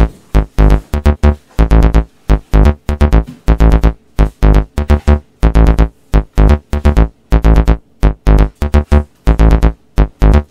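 Background electronic music: synthesizer chords over a heavy bass beat, in short choppy bursts with a steady rhythm.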